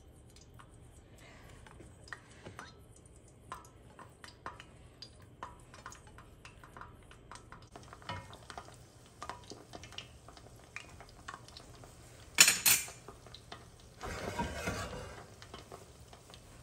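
Metal spoon clinking and scraping against a pan of frying oil as gulab jamun dough balls are handled, with many small clicks, one louder clatter about twelve seconds in and a short rush of noise just after.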